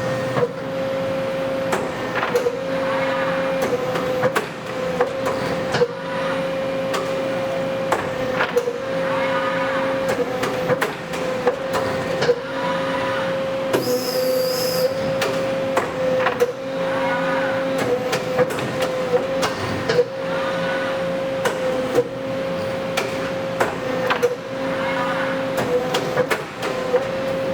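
Horn Metric 38TMRE hybrid dual-stack CNC tube bender running bend cycles. A steady machine whine sits under rising-and-falling motor whines that repeat every few seconds, along with frequent clicks and knocks as the tooling moves. A brief high hiss comes about halfway through.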